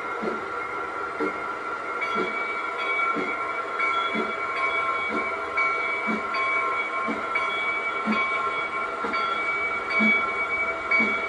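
G scale Accucraft 0-6-0 model locomotive running slowly with its train, giving a steady whine and a soft knock about once a second.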